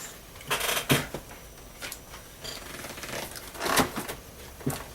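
Rustling and light knocks of packing material and a computer being handled, in a few short bursts about half a second in and again near the end.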